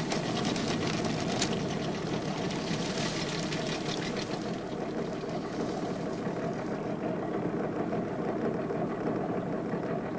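Fishing boat's engine running steadily at low speed in gear, moving the boat slowly forward.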